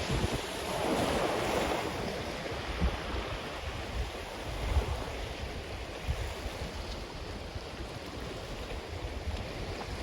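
Ocean waves washing onto a black sand beach: a wave breaks and rushes up about a second in, then settles into a steady wash. Wind gusts buffet the microphone throughout.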